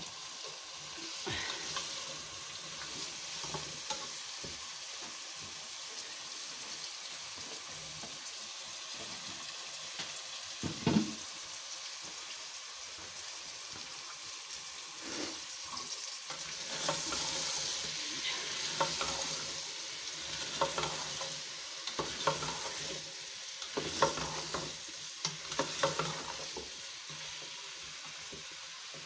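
Cubed tinda frying with a steady sizzle in onion-tomato masala in an aluminium pot, stirred with a plastic slotted spatula that scrapes and knocks against the pot now and then.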